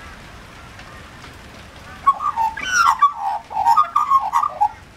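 Australian magpie calling: a warbling, bending call that starts about two seconds in and runs for over two seconds, over a steady hiss of rain.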